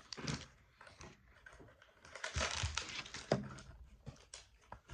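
Packaging being opened by hand: crinkling, rustling and scratching with scattered small clicks, busiest a little past the middle.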